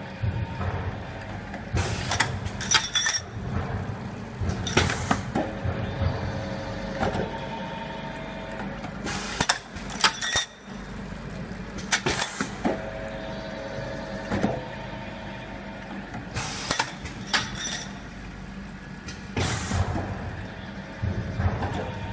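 Automatic double-head tube tapping machine running through its cycle: a steady motor hum, with a group of sharp metallic clanks about every seven seconds and a steady tone lasting a second or two between the groups.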